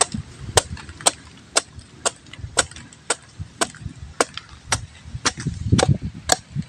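Bolo knife chopping the spiky rind off a whole jackfruit: sharp, evenly spaced strokes about twice a second.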